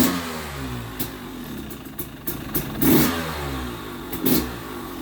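2020 KTM 300 XC TPI two-stroke engine with a Pro Circuit Type 296 spark-arrester silencer idling cold with the choke off. The throttle is blipped three times, at the start, about three seconds in and about four seconds in, and each time the revs fall back to idle.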